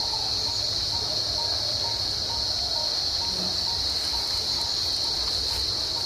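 Insects droning steadily at a high pitch, with a faint short note repeating about twice a second.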